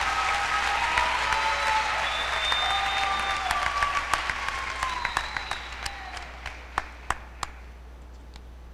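Audience applauding. The applause thins about five seconds in to a few scattered single claps, and the last ones fall about seven seconds in.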